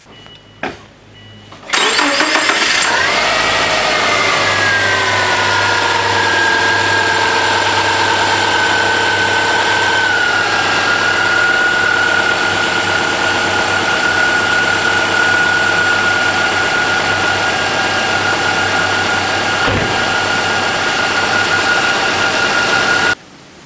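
2001 Subaru Impreza's 2.0-litre EJ20 flat-four starting up after an oil change. The revs flare briefly, then fall and settle to a steady idle, easing down a little about 10 s in. The sound cuts off suddenly near the end.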